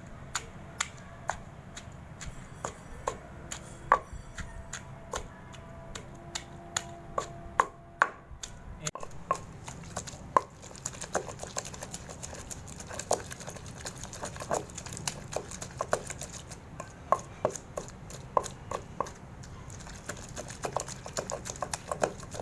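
Pestle pounding garlic, ginger, chillies, onion, coriander and tomato in a mortar to a masala paste: irregular sharp knocks, one to three a second, some ringing briefly.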